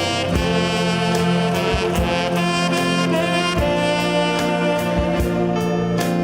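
Tenor saxophone playing a melody over a saxophone orchestra, with a long sustained low note under it and drum hits keeping a steady beat.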